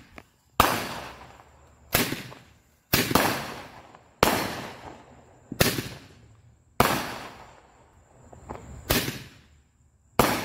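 Roman candle firing shot after shot: about eight sharp pops roughly a second or so apart, each fading away over about a second.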